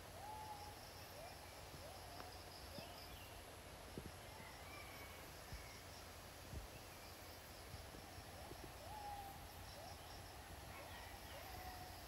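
Faint tropical forest ambience: a bird gives short, low calls that rise and then hold their pitch, repeated every second or two, with a few higher chirps. Insects trill in short high-pitched bouts over a soft steady hiss.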